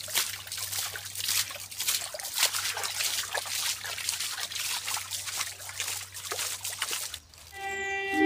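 Shallow stream water splashing and trickling as hands stir and scoop in it, in many quick irregular splashes. Music comes in near the end.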